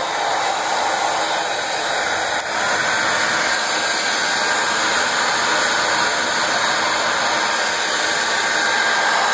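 Philips Salon Dry Control hair dryer running steadily with its fan blowing, working again after a repair to its power cable; it runs a little louder from about two and a half seconds in.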